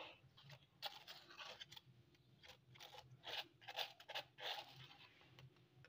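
Plastic spoon spreading desi ghee over a crisp tandoor-baked besan roti: soft, irregular scraping strokes against the bread's surface.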